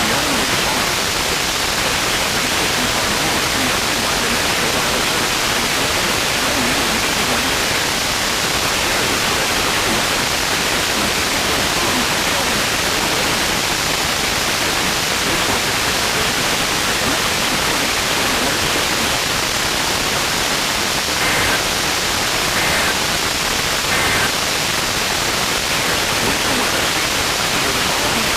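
Weather radio receiver putting out steady FM static hiss from a weak NOAA Weather Radio signal. Late on, three brief faint data bursts, about a second and a half apart, poke through the static: the pattern of a SAME alert header sent three times.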